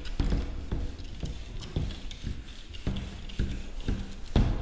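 A whiteboard eraser wiped back and forth across a whiteboard: a run of short rubbing, scraping strokes, about two a second.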